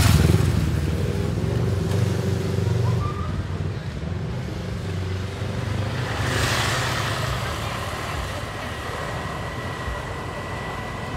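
A motor vehicle's engine passes close by and fades away over the next few seconds. A second vehicle goes past about six seconds in, over steady street traffic noise.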